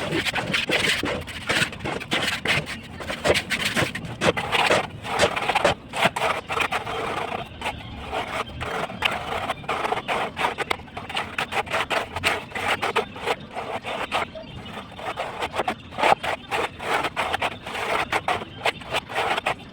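Irregular scraping and knocking of hand tools at work, dozens of short strokes in uneven bursts with brief lulls.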